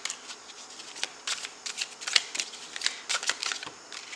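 A tarot deck being shuffled by hand, overhand, one packet of cards slapped onto the other: a quick, irregular run of crisp card snaps that stops just before the end.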